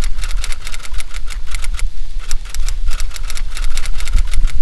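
Rapid typewriter key clicks, a typing sound effect, several a second in runs broken by short pauses, over a steady low rumble.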